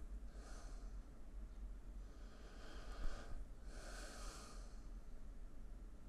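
A man's faint breathing: a few slow, soft breaths through the nose, over a low steady hum.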